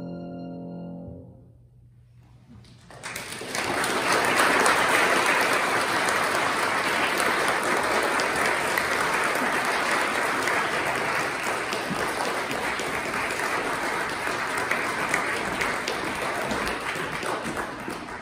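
The final violin-and-piano chord of the movement dies away, and after a short pause the audience applauds steadily, tailing off near the end.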